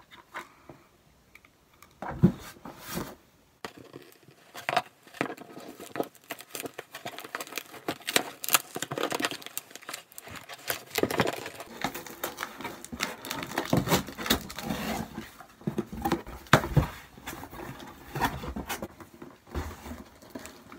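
Cardboard shipping box being forced open by hand without a knife: packing tape ripping and cardboard scraping and crinkling in an uneven run of sharp rips and scrapes, starting about two seconds in.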